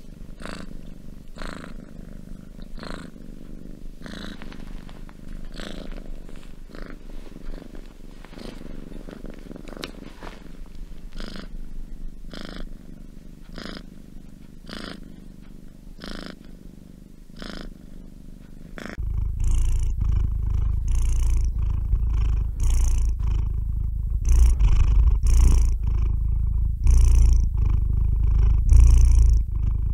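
Domestic cat purring, its purr rising and falling with each breath about every second and a half. About two-thirds of the way in it gives way to a kitten's purr, much louder and deeper, close up, with a breath pulse about once a second.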